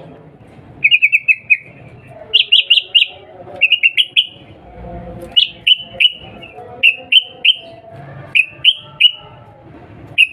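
Yellow-vented bulbul (trucukan) giving loud, sharp "cuk cuk" calls in quick runs of two to four short notes, each note dropping slightly in pitch, the runs coming about once a second.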